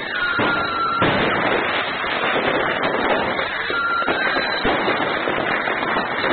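Many fireworks going off at once: continuous crackling and popping, with a sharp bang about a second in. A high whistle sounds near the start and again around four seconds in.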